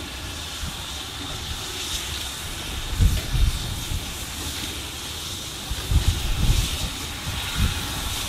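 Swedish R-class steam locomotive hissing steam steadily, with a few low thumps about three seconds in and again near the end.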